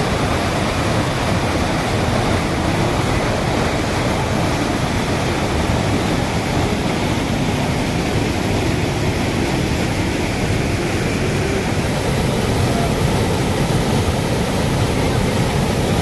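Waterfall and rocky stream in heavy monsoon flow, water rushing steadily over the rocks as one loud, even rush without breaks.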